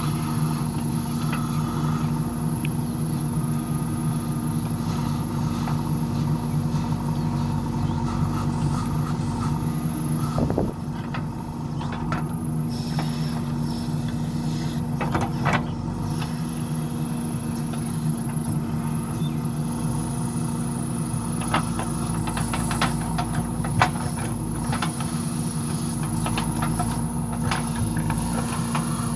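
A JCB backhoe loader's diesel engine running steadily while it works, with a few short knocks scattered through.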